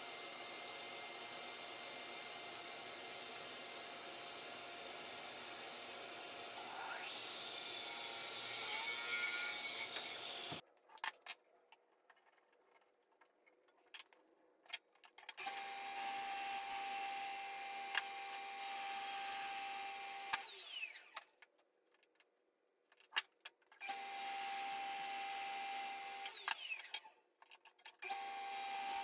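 Delta radial arm saw running in several stretches a few seconds long, each ending in a falling whine as the motor winds down, with quiet gaps of light knocks between.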